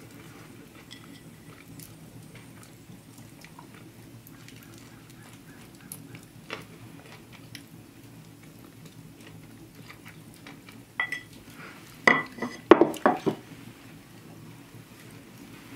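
A fork clinking and scraping against a plate, with a few faint ticks about six seconds in and a quick run of loud, ringing clinks near the end.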